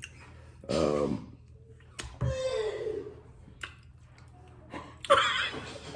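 A person's voice making short sounds between pauses: a brief syllable about a second in, a click, then a drawn-out vocal sound falling in pitch, and a breathy burst near the end.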